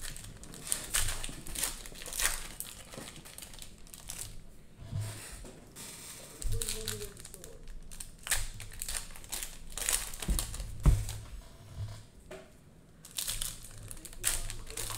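Plastic cello-wrapped Prizm basketball card pack being crinkled and torn open by hand, a run of short, sharp wrapper crackles.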